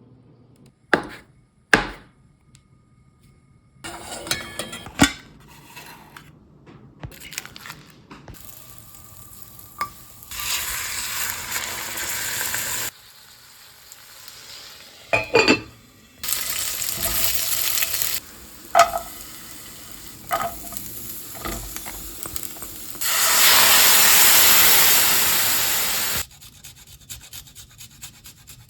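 Food sizzling in a frying pan in three loud stretches that start and stop abruptly, with clinks and knocks of utensils on cookware in between.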